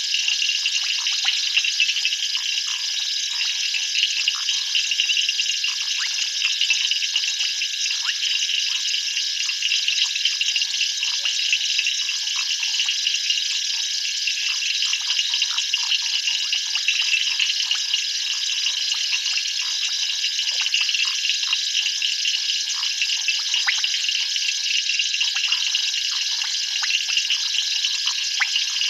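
Steady night chorus of insects and frogs: a dense high-pitched ringing laced with many quick clicks.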